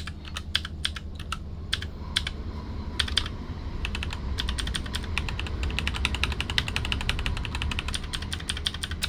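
Typing on a mechanical keyboard, in a test of how loud the switches are. Scattered single keystrokes come first, then fast continuous typing from about three and a half seconds in.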